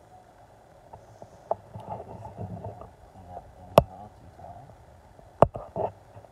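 Soft scraping of a hair razor drawn in short strokes through wet hair, with a few sharp clicks, the loudest about four and five and a half seconds in.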